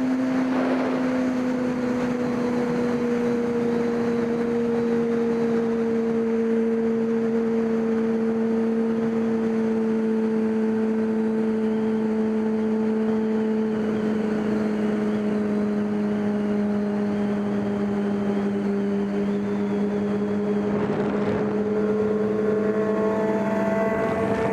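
An engine running steadily at high revs for the whole stretch, its pitch sagging slowly and then holding, over a steady hiss of background noise.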